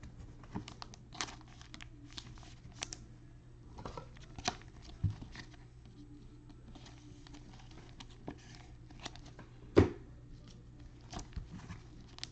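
Trading cards being slid into thin plastic penny sleeves and a rigid plastic top loader. Soft plastic crinkling and rustling, with scattered light clicks and one sharper click about ten seconds in.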